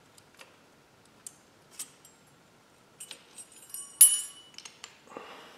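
Small metal clicks and clinks as a brake caliper and a metal rotor guard are handled and fitted together, with one sharp ringing metallic clink about four seconds in, followed by a short scrape near the end.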